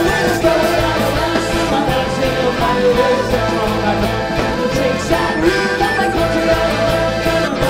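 Celtic folk-punk band playing live: accordion, electric guitars and drums together in a full, steady rock beat.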